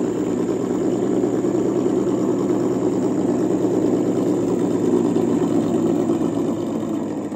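A steady, engine-like idling sound: a low hum under a rumble, swelling a little mid-way and starting to fade near the end.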